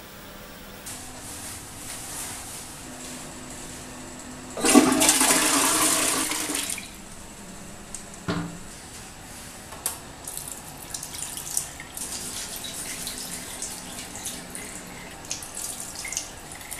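Toilet flushing: a loud rush of water lasting about two seconds, starting about five seconds in. A single knock follows as the toilet lid is shut, then quieter running water with scattered small knocks.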